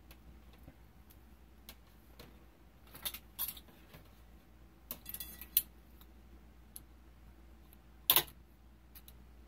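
Small hand tools and a plastic telephone-cable connector being handled while the wires are worked out of it: scattered clicks and short scrapes, the loudest a sharp click about eight seconds in.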